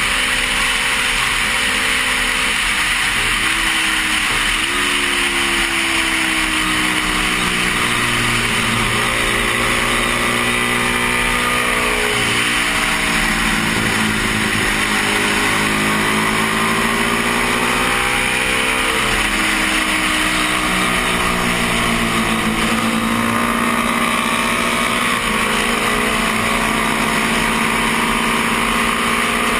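1972 Honda CB350's parallel-twin engine running hard at racing speed, under heavy wind rush on a helmet-mounted microphone. The engine note drops and climbs again several times, most clearly about three, twelve and eighteen seconds in.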